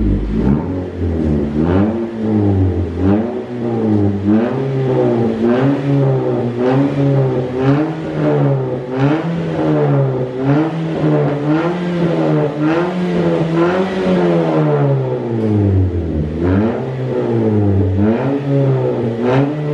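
Toyota Yaris four-cylinder engine revved in repeated blips, rising and falling about once a second, with one longer drop near the middle. It breathes through an aftermarket NDK Pro-Street muffler and Drag S resonator on the stock header, giving a dry bass exhaust note.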